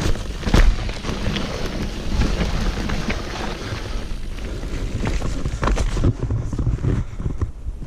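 Wind buffeting a helmet-mounted action camera's microphone as a mountain bike rides rough trail, with tyre rumble and several sharp knocks and rattles from the bike over roots and rocks.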